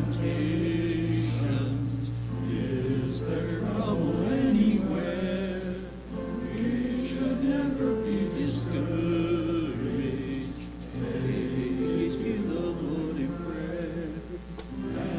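A congregation singing a hymn together, the voices carried over long held low accompaniment notes.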